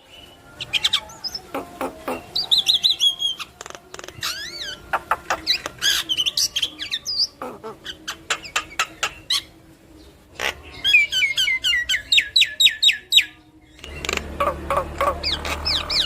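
Javan myna (yellow-eyed jalak kebo) singing a busy, varied song of gliding whistles, clicks and quick runs of repeated notes. About 14 seconds in, a low steady hum comes in under the calls.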